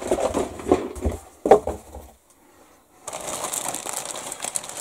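Handling a large plastic bag of model-kit sprues on a tabletop: irregular knocks and thumps of the plastic parts, the loudest about a second and a half in. After a short quiet gap, a steady crinkling of the clear plastic bag begins about three seconds in.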